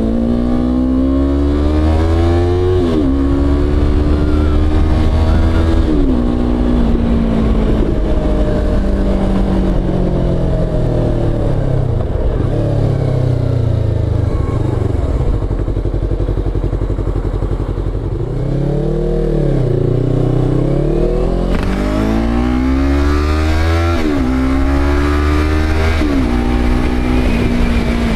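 Motorcycle engine running under way, its revs climbing and then dropping sharply at each upshift, a couple of times near the start and again near the end. In the middle the revs sag as it slows, with a short rise before it pulls away again, and wind and road hiss grow as it speeds up.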